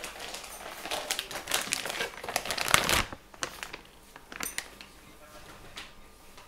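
Packaging crinkling and rustling as the power supply is unwrapped. The dense crinkle lasts about three seconds and is loudest just before it stops, followed by a few short rustles and clicks.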